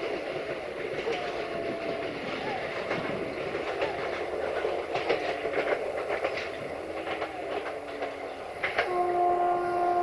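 Passenger coaches rolling away over pointwork, with wheels clicking over rail joints and short squeals sliding in pitch. About nine seconds in, the GM diesel locomotive's air horn starts a steady, held tone.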